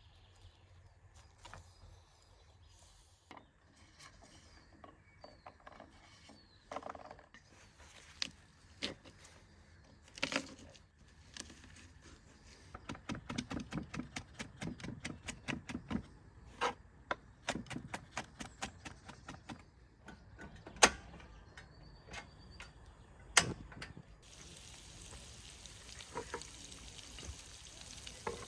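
Scattered clicks and knocks with a quick run of taps in the middle, then, about three quarters of the way through, food starts sizzling as it fries in a pan.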